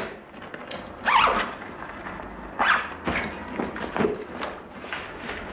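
A cloth duffel bag being packed and handled on a bed: irregular rustles and soft thumps as it is stuffed, zipped and lifted by its straps.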